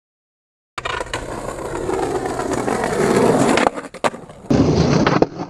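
Skateboard wheels rolling over stone paving slabs, starting about a second in and getting louder, then cutting off, followed by a few sharp knocks and a loud clack about four and a half seconds in as the board meets the wall in a nose jam.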